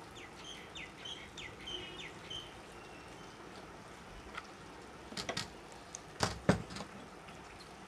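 Small birds chirping a run of quick calls in the first couple of seconds. Later a few light clicks, then two sharp knocks about six seconds in as the electric hand planer's body is handled and knocked against the workbench.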